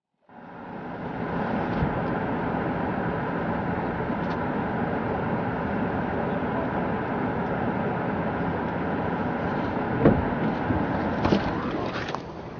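Steady loud rushing noise, as of a vehicle moving through a storm, with a few short knocks near the end as it fades.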